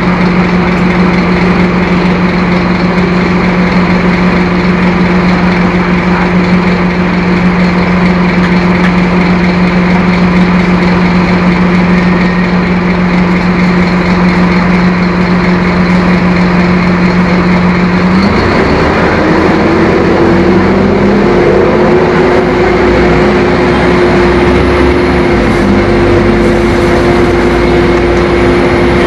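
Scania K-270 bus's five-cylinder turbo diesel engine running loud, with a steady whine over it. About two-thirds of the way through, the whine jumps higher, rises and then holds, and the low rumble gets heavier, as the engine takes on more load.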